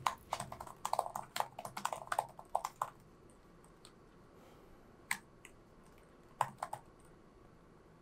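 Fast typing on a laptop keyboard for about three seconds, then a few scattered keystrokes.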